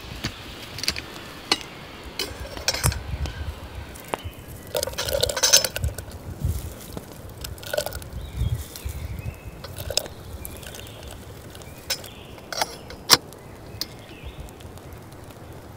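Metal kettle handled over a campfire: scattered clinks and knocks of its lid and handle, and dry bits tipped into it from a basket, with a short burst of rattling about five seconds in. The sharpest clink comes about thirteen seconds in.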